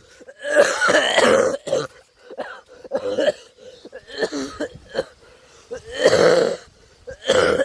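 A man coughing and clearing his throat in short bursts, several times over, with gaps between.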